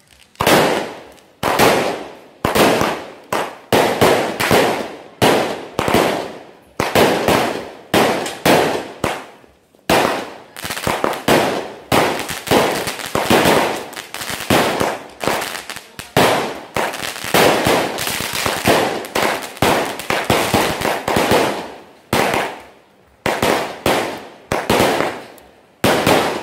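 A 49-shot firework cake with 1-inch tubes firing its shots in quick succession, about one to two sharp bangs a second, each fading away. The shots come thickest and run together in the middle of the volley.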